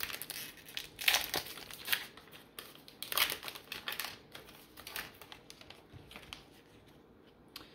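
Crinkling of a plastic card-pack wrapper being opened and handled, as irregular crackles that are loudest about one and three seconds in and die away near the end.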